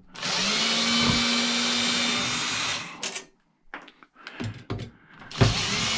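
A power drill running twice to back out the screws holding a microwave's magnetron. The first run is a steady spin of about two and a half seconds. A few short clicks follow, then a second run starts near the end.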